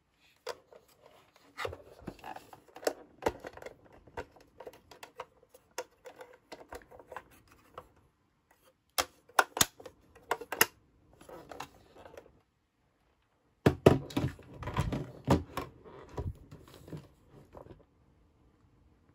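Light plastic clicks, taps and clatters of a toy kitchen set being handled, its small parts and doors moved about, with two denser, louder runs of knocks about halfway through and again a few seconds later.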